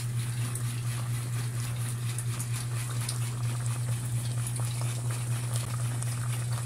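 A pot of fish with garlic and onions simmering in vinegar for inun-unan, giving faint scattered bubbling ticks over a steady low hum.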